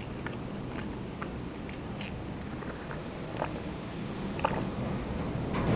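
Close-miked eating sounds: soft, wet mouth clicks from chewing a shawarma wrap, then sips of juice from a glass near the end.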